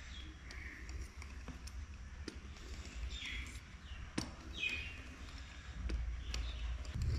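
Faint taps and clicks of a steel spoon edge cutting strips into rolled namak para dough and knocking on the board, a few sharp clicks in all. Short falling bird chirps come twice near the middle, over a steady low hum.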